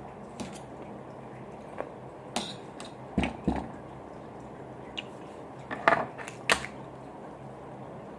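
Plastic Play-Doh molds and tools tapping and clacking on a tabletop while dough is worked: scattered light clicks, two dull thuds a little after three seconds, and a pair of sharper clacks near six seconds.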